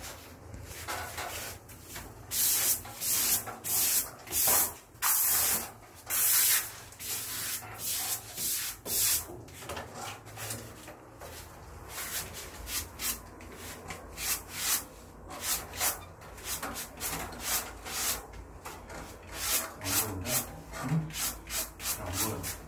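Plastic wallpaper smoother swept stroke after stroke over freshly hung non-woven wallpaper, a run of short scraping rubs as the paper is pressed flat to the wall. The strokes are loudest a few seconds in, then come quicker and softer.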